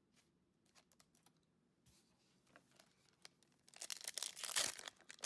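Foil Pokémon booster pack handled with light crinkles and clicks, then torn open with loud crinkling near the end.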